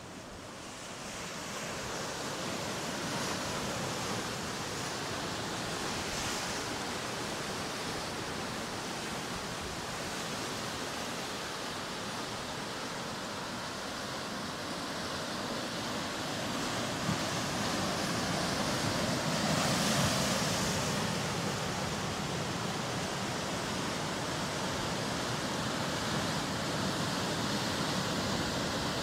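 Ocean surf breaking and washing ashore in a steady rush. It builds over the first couple of seconds and swells louder about twenty seconds in.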